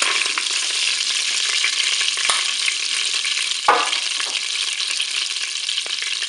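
Rendered duck fat sizzling and bubbling hard in a Cookeo multicooker's pot on its browning setting. A light knock comes about two seconds in and a louder one just before four seconds.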